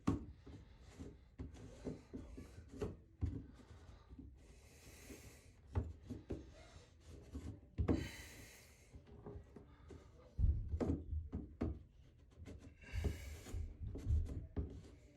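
Scraping, rubbing and light knocks as a shower floor drain is worked into place by hand, with a few louder scrapes spread through.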